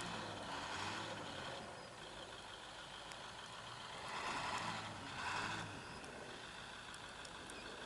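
UPS delivery truck's engine revving in two surges, about four seconds apart, over a steady lower running sound, as the truck tries to pull free of the deep snow it is stuck in.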